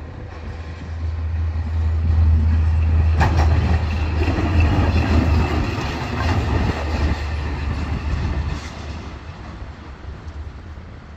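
DB class 362 diesel shunting locomotive running light past, its diesel engine's low hum swelling as it comes close and fading as it moves away. Its wheels click over the rail joints as it passes.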